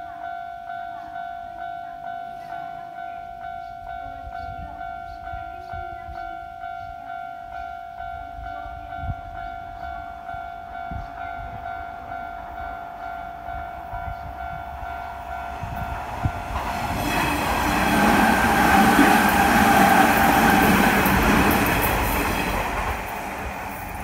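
Japanese level-crossing warning bell ringing in an even, rapid electronic ding-ding, while an electric train of the Kintetsu Nara Line approaches and passes over the crossing. The train noise builds past the halfway point, covers the bell at its loudest, then eases off near the end.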